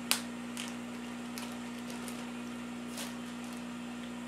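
Thin plastic zip-top food bag being handled and opened, giving a few short crinkles, the sharpest one right at the start. A steady low hum runs underneath.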